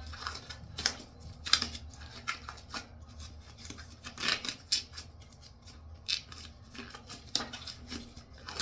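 A glove being worked onto a hand: irregular sharp snaps and rubbing as the tight material is stretched and pulled on.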